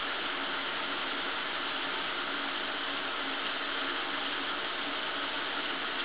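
Shower running: spraying water as a steady, even hiss.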